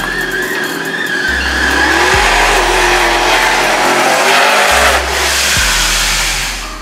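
Ford Lightning pickup V8s running hard down the drag strip with a squeal of tires, loudest in the middle and dropping away near the end. A music track with a steady deep bass beat runs underneath.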